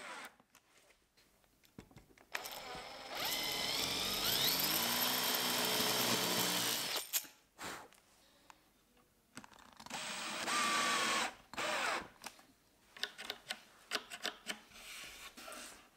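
Festool cordless drill-driver driving screws through Blum Movento front clips into a drawer box. One long run of about four seconds rises in pitch and then holds, a shorter run follows later, then a few short bursts and clicks.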